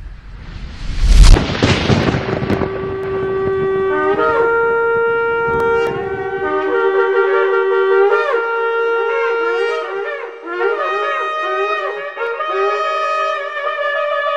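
A loud boom about a second in, then shofar blasts. The horn sounds long held notes, with more than one note overlapping at times, and later breaks into wavering calls whose pitch bends up and down.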